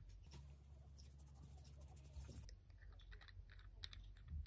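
Near silence: faint room tone with a few soft clicks and taps, mostly in the second half, from a hand handling a small cosmetics bottle.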